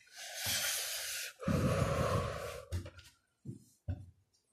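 A person's heavy breathing close to the microphone: a long noisy breath in, then a louder breath out. A few short soft knocks follow near the end.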